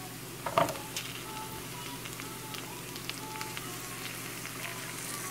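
Oil sizzling and crackling steadily in a frying pan as marinated chicken pieces fry with onions, dried red chilies and curry leaves. There is a brief louder sound about half a second in.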